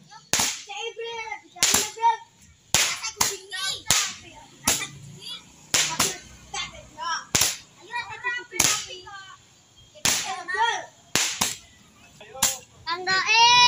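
Small firework rockets bursting overhead: about a dozen sharp bangs at irregular intervals, with short rising-and-falling pitched sounds between them.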